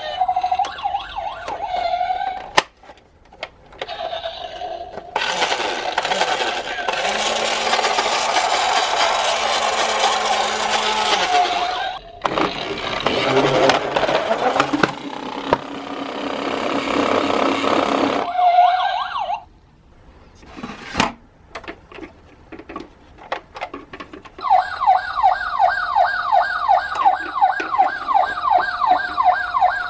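Toy police car's electronic siren: a wavering tone at the start and a fast repeating yelp, about three rising sweeps a second, near the end. In between come two long stretches of loud noise and a few scattered clicks.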